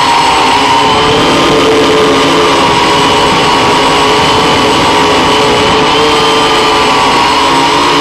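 An octocopter's eight motors and propellers running in climbing flight: a loud, steady buzzing whine made of several close pitches that waver slightly, dipping a little in the first second.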